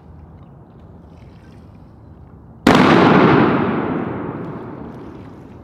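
A single shotgun shot goes off about two and a half seconds in, its echo dying away over the next two seconds or so.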